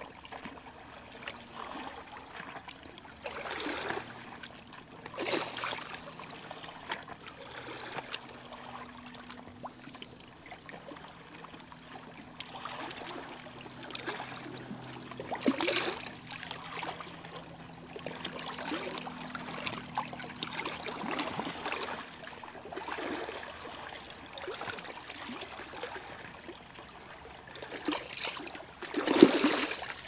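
Small sea waves washing onto the shore, each one a swell of rushing noise every few seconds, the loudest near the end.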